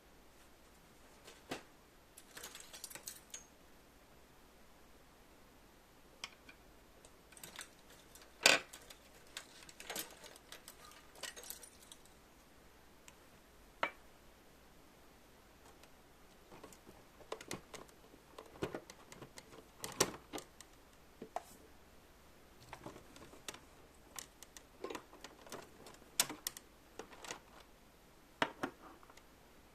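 Small hard toy pieces clicking and clattering as they are handled, in irregular bursts with a few sharper knocks, and no steady motor sound.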